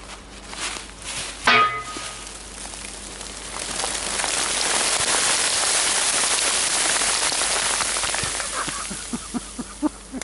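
Hoarfrost ice crystals showering down from the branches with a rain-like hiss that swells and then dies away over about five seconds, followed by a few scattered ticks. A brief high cry comes about a second and a half in.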